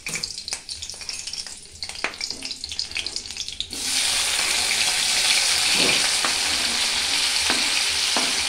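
Oil in a kadhai crackling lightly around two green chillies. About four seconds in, chopped tomatoes are scraped off a cutting board into the hot oil and a loud, steady sizzle starts at once, with a few taps of a steel spoon against the board.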